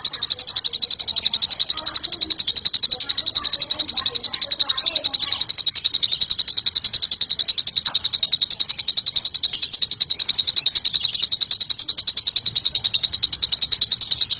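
Cucak ijo (green leafbird) singing a long, unbroken high-pitched trill of rapid, evenly repeated pulses, a cililin-style call learned as masteran.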